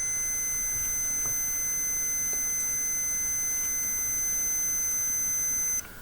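A steady, high-pitched electronic beep tone held unbroken for several seconds, cutting off suddenly near the end.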